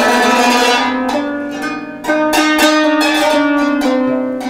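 Qanun played by hand: clusters of plucked strings ring out together and are left to sustain, with a fresh group of notes struck about two seconds in, then fading.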